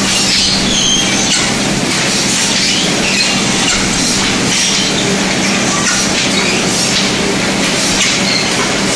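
Automatic broomstick processing machine running: a steady motor hum under a dense mechanical rattle, with brief high squeaks scattered through.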